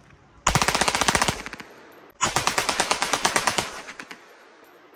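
Darra-made Zigana-pattern pistol firing two rapid automatic bursts: a short one about half a second in and a longer one just after two seconds, each shot-string dying away in echo.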